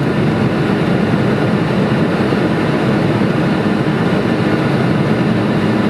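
Steady rumble inside the flight deck of a Boeing 747-400 taxiing, from its engines at taxi power.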